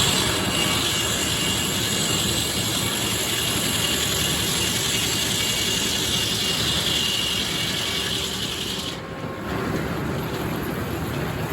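Sawmill's inserted-tooth circular saw cutting through red oak, with a steady high hiss that stops abruptly about nine seconds in as the cut ends. The mill's motor keeps running underneath throughout.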